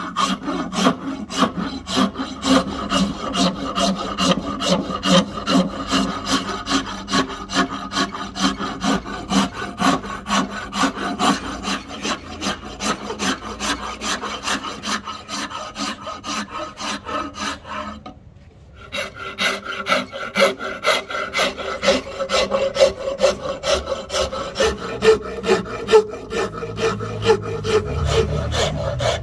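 Hand filing of a rosewood axe handle: rhythmic back-and-forth rasp strokes at about two to three a second, with a brief pause about two-thirds of the way through.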